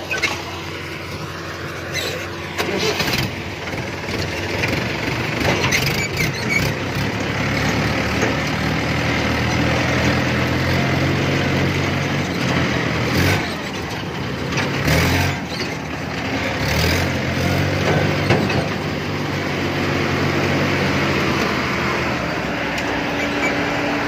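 Mahindra 475 tractor's diesel engine running while the tractor is driven, its engine speed changing a few times, with occasional clanks and rattles.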